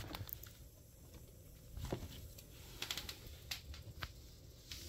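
Faint, scattered light clicks and taps, about a dozen spread unevenly, the strongest about two seconds in.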